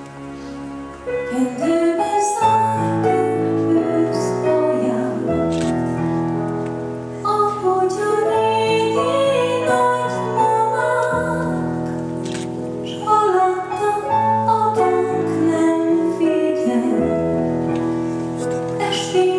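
A woman singing a ballad live into a microphone over band accompaniment of held chords; her voice comes in about a second in.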